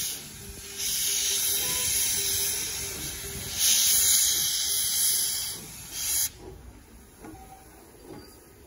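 Open cylinder cocks of a 1928 Vulcan Iron Works 0-4-0 saddle-tank steam locomotive blowing steam in loud hissing blasts, clearing water from the cylinders. The hiss comes in long pulses a couple of seconds each and cuts off suddenly about six seconds in.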